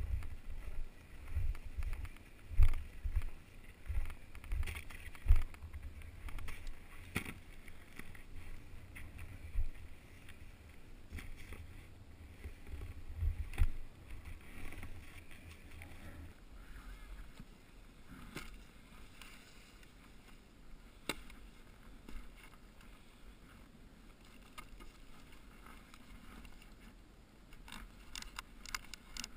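Wind buffeting a GoPro Hero2 action camera's microphone in gusts, with scuffs and knocks of handling and movement in snow. The gusts die down about halfway through. Near the end comes a run of quick clicks as a snowboard binding's ratchet strap is tightened.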